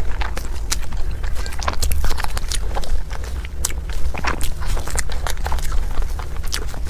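Close-miked chewing of a large mouthful of food, with many small wet clicks and smacks over a dull low thudding.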